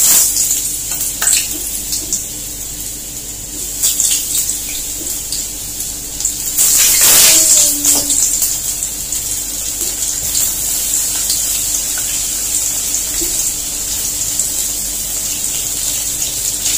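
Sweet potato slices sizzling in hot oil in a frying pan: the sizzle starts suddenly as the first slice goes in and swells about seven seconds in as more slices are added, with a few short clicks.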